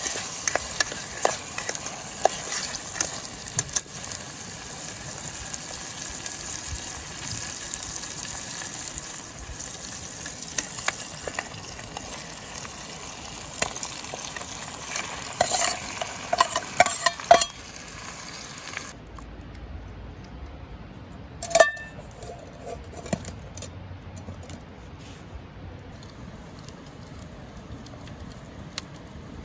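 Food sizzling as it fries in a pan, with light scrapes and clicks of a utensil. About two-thirds of the way through the sizzle cuts off suddenly, leaving a quieter background with a few sharp knocks, the loudest shortly after.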